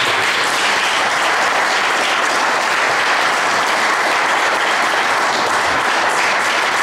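Audience applauding: dense, even clapping at a steady level.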